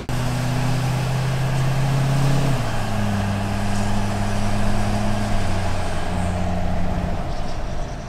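L5P Duramax 6.6-litre V8 turbo-diesel pickup heard from inside the cab while driving: a steady deep engine drone that drops in pitch about two and a half seconds in and shifts again a few seconds later, with road noise above it.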